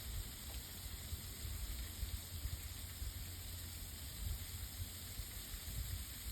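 Steady hiss of freezing rain falling on ice-coated surfaces, with wind buffeting the microphone in low, uneven gusts.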